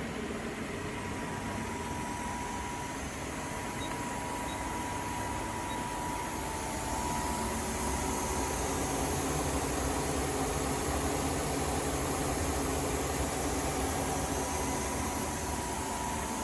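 Okuma GA-26T cylindrical grinder running: a steady machine hum with a thin whine, growing louder about seven seconds in.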